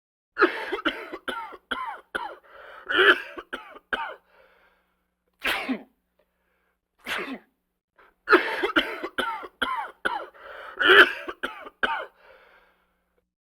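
A person coughing: a rapid fit of about ten coughs, then two single coughs a second and a half apart, then a second fit like the first.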